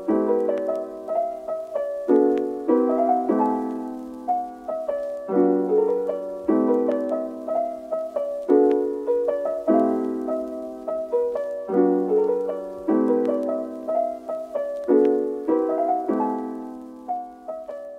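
Background piano music: a calm tune of struck chords that repeats every couple of seconds.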